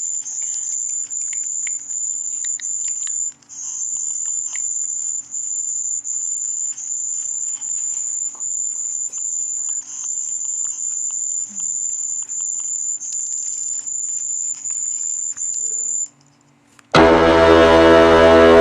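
Sound effects for a binary counter: a high-pitched electronic beep repeating about two to three times a second. Near the end, after about a second of silence, a loud, low, buzzy horn-like effect starts as the count reaches −32.7K.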